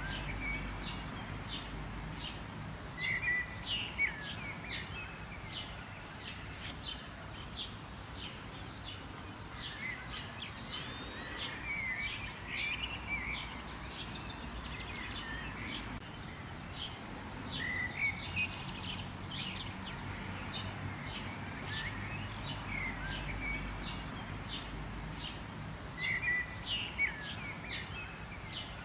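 Birds chirping and twittering continuously, many short high notes overlapping, over a steady low background rumble.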